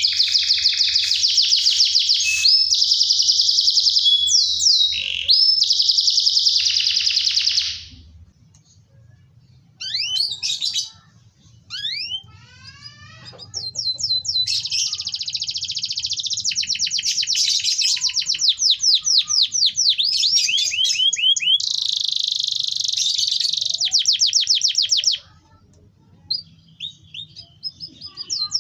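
Domestic canary singing in long, fast rolling trills of rapidly repeated high notes, with short pauses about a third of the way in and near the end.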